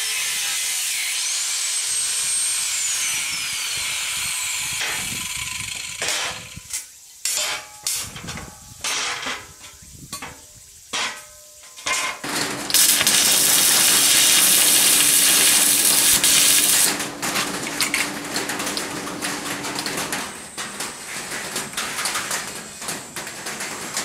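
Angle grinder cutting a steel plate, running steadily for about six seconds. Then come separate metal knocks and clanks, a second steady run of the grinder for about four seconds, and more scattered metal clanks.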